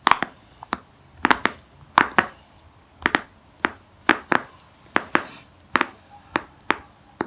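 Silicone pop-it fidget toy bubbles being pressed one after another, each giving a short pop, about three a second at an uneven pace.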